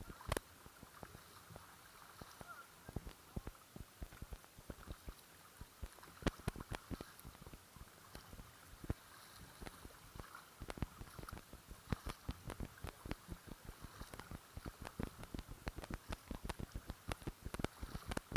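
Kayak being paddled: water splashing and lapping around the hull of an Oru folding kayak, with many small irregular clicks and knocks several times a second over a steady low hiss.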